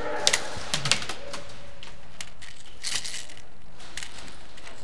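Airsoft gunfire and BB impacts: a quick cluster of about four sharp clacks within the first second, then a short hissing crack about three seconds in.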